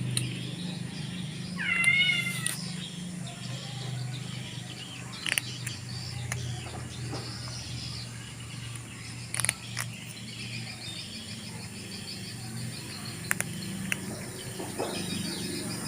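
A domestic cat meowing once, about two seconds in, a short call with a wavering pitch, over a steady low hum with a few sharp clicks later on.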